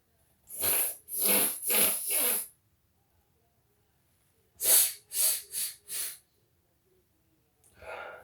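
A child's sharp bursts of breath from nose and throat, irritated by sniffed black pepper: two quick runs of four breathy bursts about half a second apart, then a brief voiced breath near the end.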